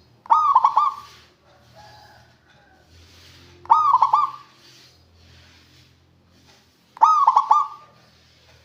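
Zebra dove (perkutut) singing its fast, trilling coo song in three short bouts about three seconds apart.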